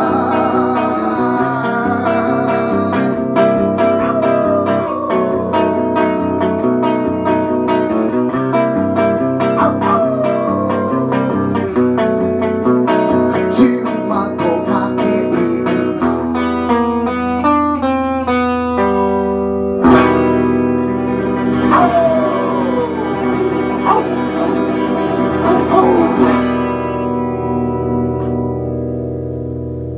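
Electric guitar played solo, chords mixed with lead lines and bent, gliding notes. A hard strum comes about two-thirds of the way through, and the last chord rings out and fades near the end.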